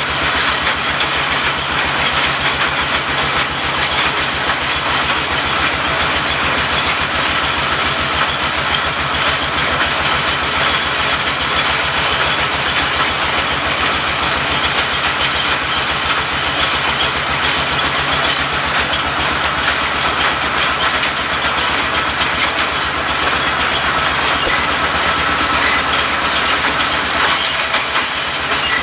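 Bore well drilling machine running steadily: a loud, continuous mechanical din with a fast, even pulse.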